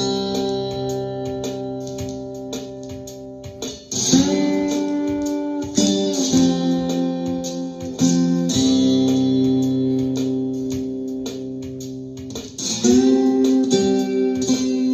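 Ovation koa guitar in open C tuning: chords struck and left to ring, sliding up into new chords about four seconds in and again near the end. It is being sound-checked after a neck repair.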